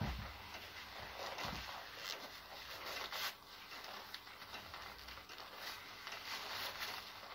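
Black leather gloves being pulled on and pressed down over the fingers, leather rubbing and squeaking against leather in short irregular strokes, with a couple of soft low knocks in the first second and a half.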